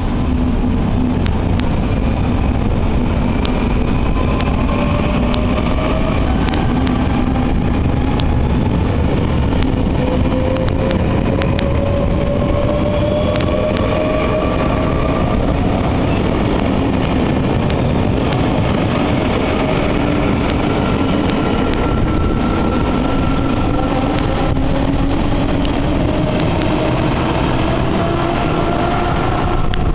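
NS VIRM double-deck electric train accelerating away from the platform, its traction motors whining in rising tones that climb, drop back and climb again as it gathers speed. A loud low rumble of the train runs underneath.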